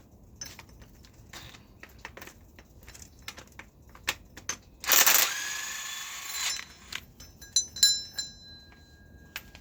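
Metal hand tools and parts clinking and rattling during engine teardown work, with one loud metallic clatter about five seconds in that rings on briefly, and a few more sharp clinks near the end.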